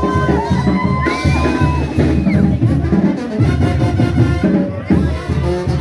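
Brass band music with trumpets over a steady, driving bass drum beat.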